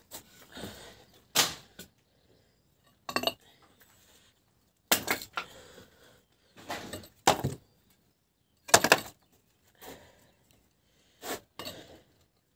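Irregular clatters, knocks and clinks of objects being shifted and set down, about ten separate bangs with pauses between them; the loudest comes about nine seconds in.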